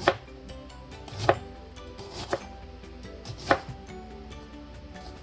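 Chef's knife chopping an onion on a plastic cutting board: four sharp knocks of the blade striking the board, about one a second.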